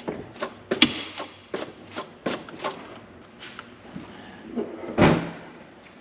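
A run of sharp clicks and knocks, then one loud, heavier thud about five seconds in.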